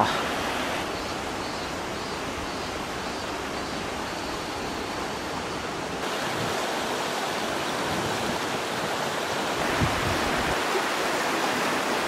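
Clear, shallow mountain river running over stones: a steady rush of water that gets a little louder about halfway through.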